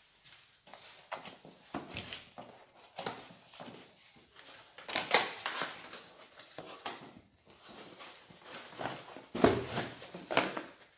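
Cardboard box being opened and handled: flaps and sides scraping and rustling in irregular bursts, loudest about halfway through and again near the end.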